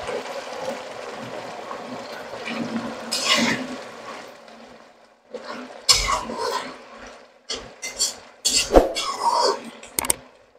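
Canned sardines in sauce sizzling in a hot pan, a noisy hiss that fades over the first few seconds. From about six seconds in, a metal slotted spatula stirring and scraping against the pan in irregular strokes.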